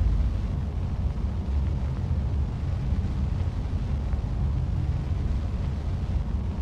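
Steady low rumbling drone, with its energy deep in the bass and no distinct events.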